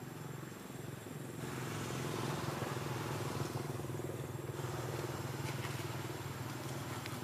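An engine running steadily, its hum growing louder about a second and a half in.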